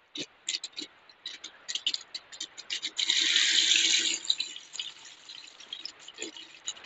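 Masala-marinated fish pieces shallow-frying in hot oil, crackling and popping. About three seconds in, another piece goes into the pan and sets off a loud burst of sizzling that lasts about a second, then settles back to a quieter crackle.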